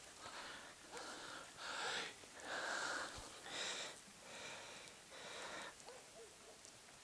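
A person breathing hard, out of breath after moving fast through scrub: heavy, rushing breaths close to the microphone, about one a second, loudest around the middle.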